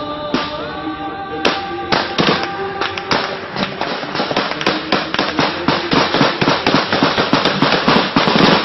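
Small-arms gunfire: scattered shots at first, then rapid, dense firing from about three seconds in, over nasheed music with held notes.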